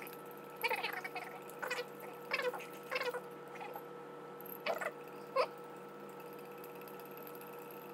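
Small metal whisk stirring sugar water in a glass jar, scraping and squeaking against the glass in a handful of short strokes. The last two come about a second apart.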